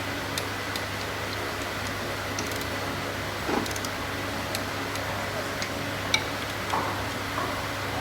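Scattered light metallic clicks and taps of tools and engine parts being handled during an engine rebuild, over a steady low hum.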